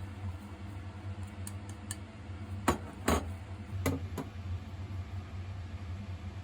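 Kitchenware clinking: four sharp knocks between about three and four seconds in, with a few faint ticks before them, over a steady low hum.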